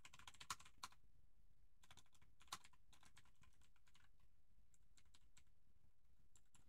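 Faint computer keyboard typing: quick runs of keystrokes in the first second and again around two and a half seconds in, then scattered single key presses.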